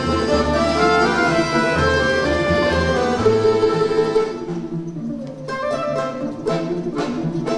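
Folk instrument orchestra playing, with plucked long-necked lutes and accordions. About four seconds in, the full sound drops away to a quieter passage of plucked chords at about two a second.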